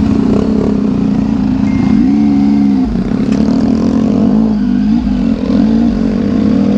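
Motorcycle engine running under way, its pitch rising and falling a few times with the throttle, with wind rumbling on the microphone.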